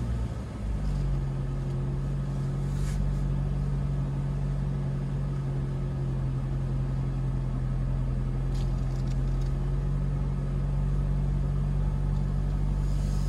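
Four-wheel-drive vehicle's engine running steadily at low revs, heard from inside the cabin, as it crawls in first gear in low range. The drone settles into a steady hum about a second in.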